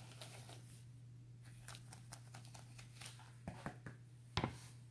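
Faint clicks and rustles of rubber-gloved hands handling a plastic bowl of marinade, with a sharper knock near the end as the bowl is set down on a plastic cutting board. A steady low hum runs underneath.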